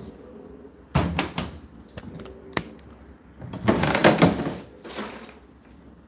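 Plastic knocks and clicks from handling an Indesit condenser dryer's door and water-container drawer: a sharp knock about a second in, a few clicks, then a scraping plastic rattle around four seconds in as the water container is slid out of its drawer.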